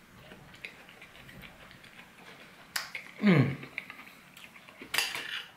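Close-up eating sounds of a mouthful of apple crumble pie and ice cream: faint wet chewing clicks, then a short hum of enjoyment that drops quickly in pitch about three seconds in. Near the end a metal spoon scrapes briefly on the ceramic plate.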